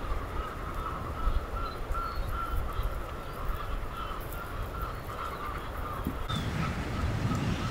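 A faint, steady chorus of African penguin calls. Wind and surf noise comes up about six seconds in.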